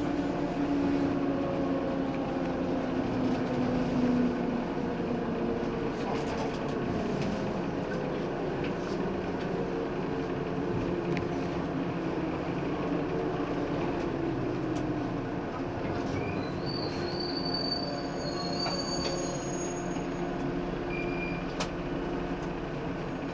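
A JR 185-series electric train heard from inside the passenger car, slowing on the approach to a station. Wheels run on the rails under a hum whose tone slowly falls in the first several seconds. Brief high squeals come about two-thirds of the way through, with a few short clicks.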